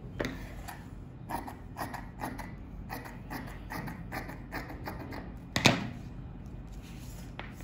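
Large tailor's shears cutting through thin viscose fabric on a table: a run of short, irregular snips and cloth rustles. About five and a half seconds in comes a single louder knock as the shears are put down on the table.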